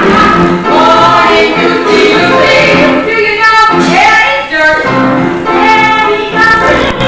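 A woman singing a show tune over instrumental accompaniment, with held, sliding notes.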